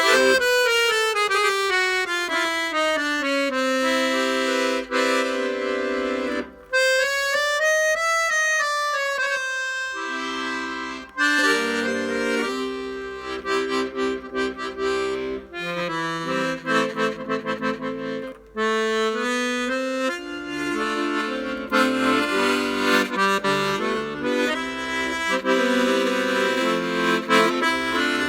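Hohner Student 72 piano accordion being test-played after repair, with a falling run, a quick run up and back down, then chords and melody over the bass.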